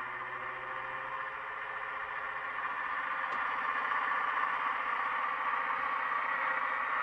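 Sound decoder in an N gauge Graham Farish Class 55 Deltic model playing recorded Deltic diesel engine sound through its small twin speakers: a steady engine running sound that grows gradually louder.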